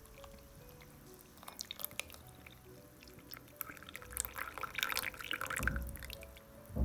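Liquid being poured, with small clicks and drips, over soft background music. Two low thumps come near the end.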